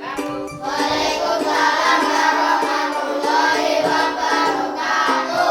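Background music with singing over a steady plucked or keyed accompaniment.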